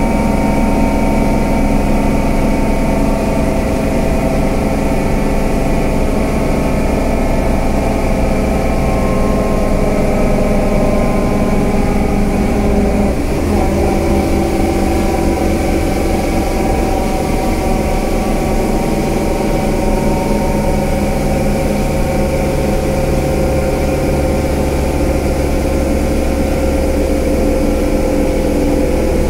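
Scania K320UA bus's diesel engine running steadily, its note shifting about halfway through.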